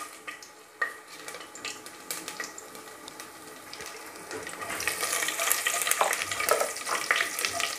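Whole spices sizzling and crackling in hot ghee and oil in a pressure cooker as they fry, the sizzle growing louder from about halfway. A spoon stirs them, clicking against the pot.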